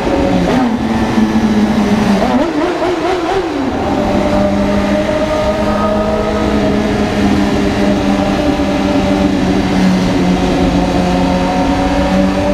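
Car engine breathing through a 'granada' aftermarket exhaust muffler, its pitch rising and falling twice over the first few seconds as it is revved. It then runs at a steady drone.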